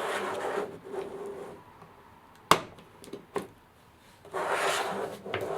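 Packaging being handled while a camera is taken out of its plastic case: rubbing and scraping at the start and again near the end, with two sharp clicks about a second apart in the middle.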